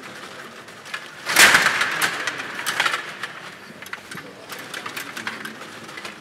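STIGA table hockey game in play: the metal rods and plastic figures click and rattle as they are spun and pushed, with the puck knocking about. A louder clatter comes about a second and a half in.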